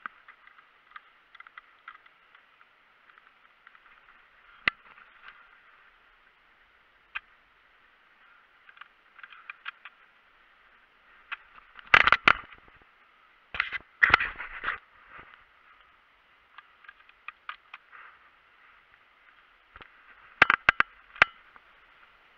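Dry leaves, twigs and camouflage netting crackling and scraping against a body-worn camera as the wearer creeps along the ground. The scrapes come in scattered single clicks, with louder clusters about twelve, fourteen and twenty-one seconds in.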